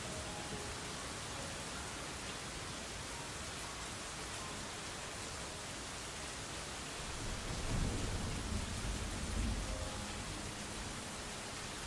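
Steady rain, with a low rumble of thunder swelling from about seven to ten seconds in.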